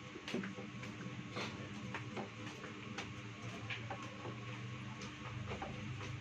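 CP-brand electric pipe threading machine running: a steady motor hum with irregular clicks and ticks over it.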